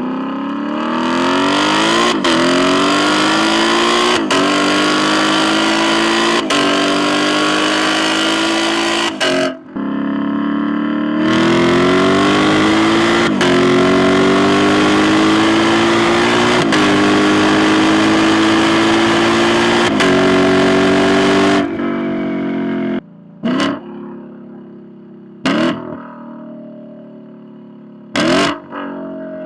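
Lexus LC 500's 5.0-litre V8 with an aftermarket mid pipe accelerating hard through the gears: the exhaust note climbs and drops sharply at each upshift, every two to three seconds, in two long pulls. Near the end it falls to a lower, quieter drone broken by a few short throttle blips.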